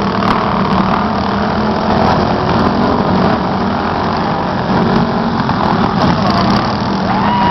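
Riding lawn mower engines running steadily.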